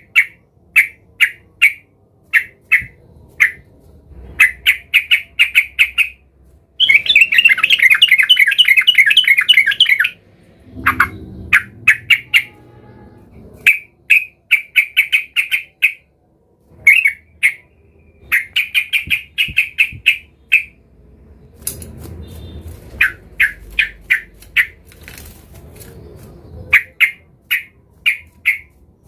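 Yellow-vented bulbul calling agitatedly in territorial mode: repeated runs of short, sharp chattering notes, with a dense unbroken burst of chatter a third of the way in.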